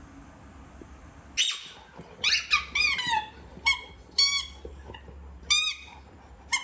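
A dog yelping: a string of about nine short, high-pitched cries that fall in pitch, starting about a second and a half in.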